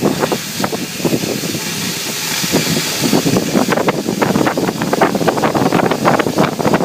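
Oxy-fuel cutting torch hissing steadily while cutting steel plate, with dense crackling and popping throughout.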